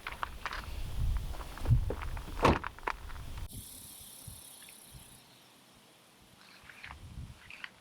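Footsteps with rustling and knocks as people move about outside, over a low rumble. About three and a half seconds in, the sound cuts abruptly to a quiet background with a faint hiss and a few soft clicks.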